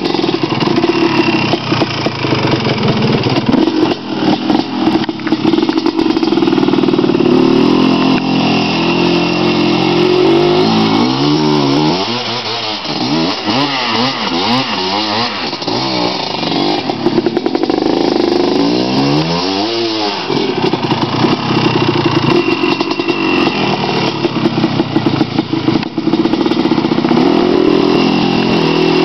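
Honda TRX250R quad's two-stroke single-cylinder engine running and revving under a rider, with its pitch rising and falling in a string of quick revs about midway.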